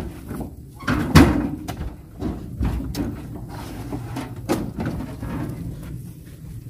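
Heavy oil palm fruit bunches thudding and knocking into a pickup truck's bed as they are handled with metal hooked poles: a string of irregular impacts, the loudest about a second in.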